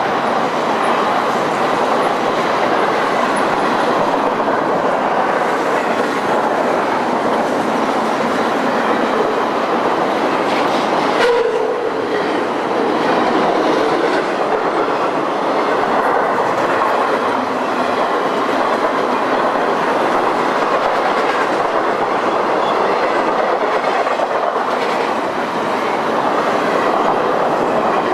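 Intermodal freight train's cars rolling past on the rails, a steady clatter of wheels over the track.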